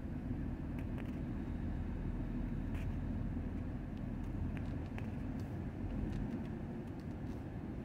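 Steady low engine rumble of a tiller ladder fire truck moving slowly through a tight turn, with a few faint ticks.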